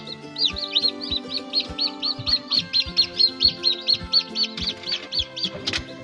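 Newly hatched Brahma chicks peeping: a rapid, even run of high chirps, about five a second, over background music with a steady beat.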